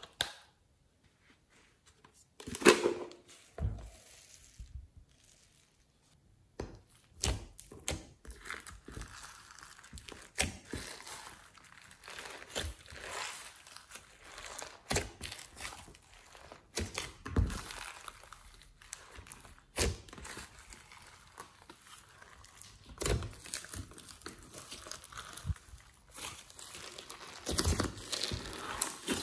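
Hands folding and kneading sticky slime mixed with clay, glitter and foam beads in a glass dish. It starts nearly quiet, then a loud squish about two and a half seconds in, followed by irregular crackles, pops and squelches as the slime is stretched and pressed.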